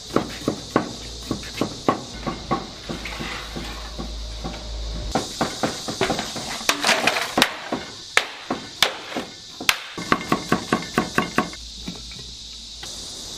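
Cleaver slicing young ginger on a thick wooden chopping block: runs of quick, sharp knocks on the board, with a pause of a few seconds after the first run.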